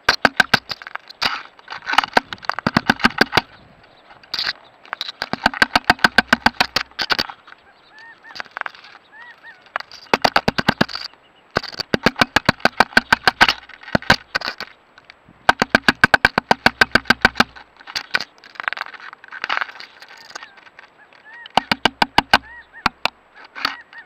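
Male woodpecker pecking hard at a trail camera's housing, heard from inside the camera: rapid strings of sharp knocks, about ten a second, in bursts of one to three seconds with short pauses between. The pecking is breaking the camera.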